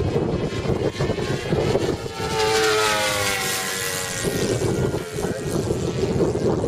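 Radio-controlled Seagull Pilatus PC-9 model plane flying past, its engine note sliding down in pitch as it goes by, about two to four seconds in.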